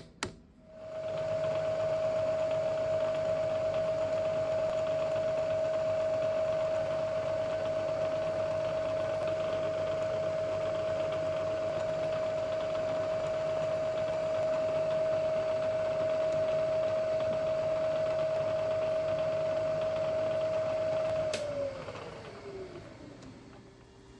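Milling machine motor switched on with a click, running at a steady speed with a constant whine and hum for about twenty seconds, then switched off with a click and winding down, its whine falling in pitch as it coasts to a stop.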